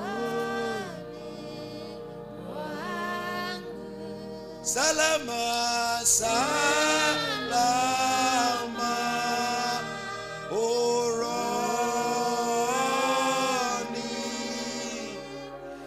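A man singing a slow gospel song into a microphone, with long held notes that slide up and down, over a sustained keyboard chord. The singing gets louder about five seconds in.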